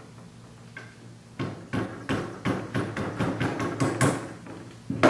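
A mallet striking a 3/16-inch steel punch to drift a pin out of an 1888 Springfield trapdoor rifle's action. It is a string of about a dozen sharp taps, roughly three a second, starting about a second and a half in, with the last one the loudest.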